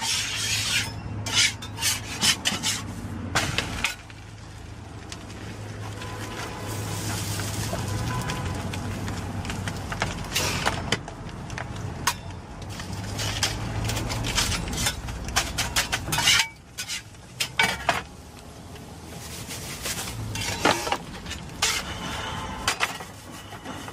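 Flat metal spatula scraping and tapping on a round metal crepe griddle, in repeated short sharp scrapes and clicks over a steady low hum.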